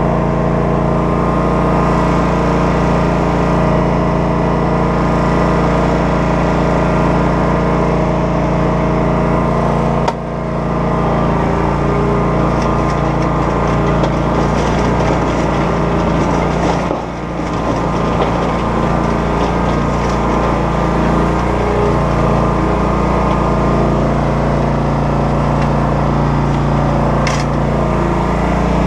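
An engine running steadily and loudly, with brief dips in level about ten and seventeen seconds in.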